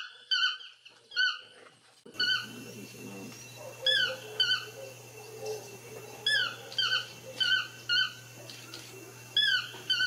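A bird calling with short, squeaky, downward-slurred notes, singly or in quick pairs roughly once a second. A steady background hiss and low hum come in about two seconds in.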